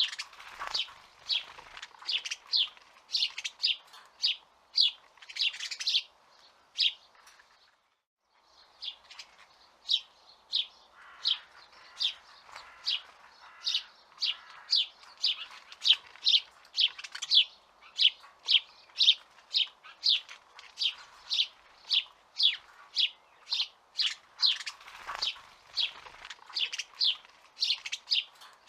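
A bird chirping over and over in short, separate chirps, about two a second, with a brief pause about seven seconds in before the chirping resumes.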